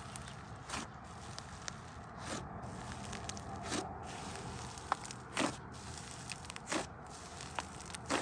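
Thick pink slime being squished and stretched by hand, giving soft squelching with irregular sharp pops and crackles of trapped air about once a second.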